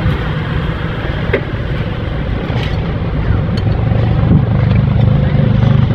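Truck engine idling steadily, its low hum growing a little stronger and steadier about four seconds in, with a few faint clicks over it.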